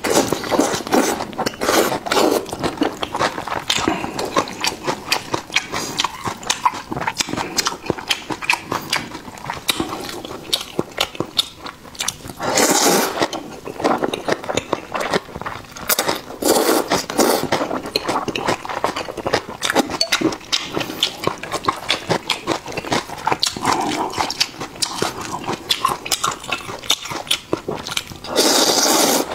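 Close-miked eating of luosifen rice noodles: continuous wet chewing with rapid mouth clicks, broken by long slurps of noodles, a strong one about halfway through and another near the end.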